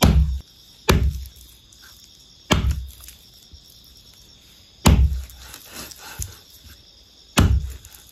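A large heavy knife chopping raw chicken into pieces on a wooden chopping block: five loud, unevenly spaced chops, each a sharp hit with a heavy thud.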